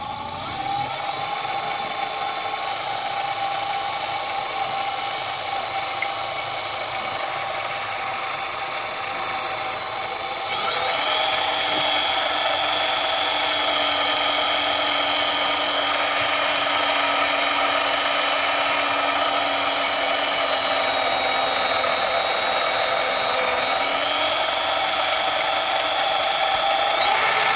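Sieg 7x14 mini lathe with a brushless motor running steadily, with a high whine and several steady tones, while a center drill bores into the hub of a spinning brass flywheel. About ten seconds in, the tones shift to a new set and hold there.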